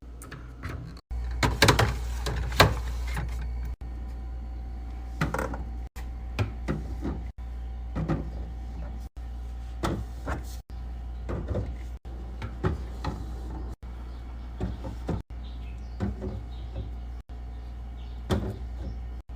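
Knocks, clatter and sliding as food containers and drinks are set into a refrigerator and its drawers, over a steady low hum. The sound is cut off abruptly every second or two.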